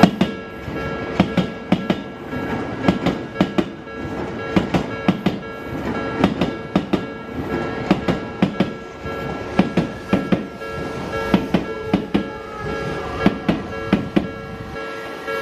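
Odakyu Line electric commuter train passing over a level crossing, its wheels clacking over the rail joints in quick groups, with the crossing's warning bell sounding steady tones.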